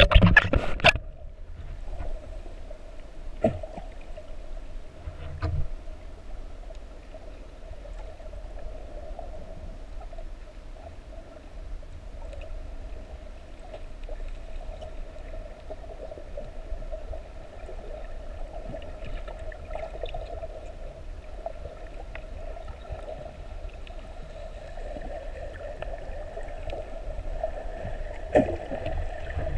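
Underwater sound as picked up by an action camera in its housing: a steady droning hum, with a loud rush of bubbles and water noise in the first second as the swimmer goes under. A few short knocks early on, and another brief burst near the end.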